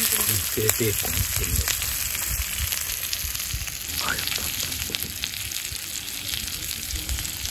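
Bacon sizzling in a frying pan: a steady hiss with many quick crackles.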